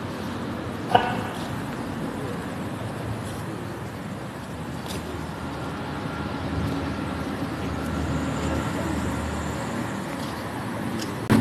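Steady low background rumble, growing slightly louder in the second half, with a single short knock about a second in.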